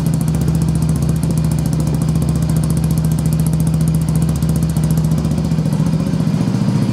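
Motorcycle engine sound effect idling steadily, a low even drone with a fast ticking rattle on top.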